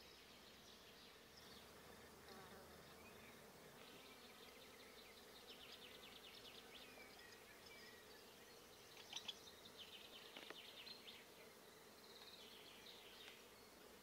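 Faint, rapid, high-pitched chattering of Great Spotted Woodpecker nestlings begging from inside the nest hole. It comes in several bouts and is loudest a little past the middle.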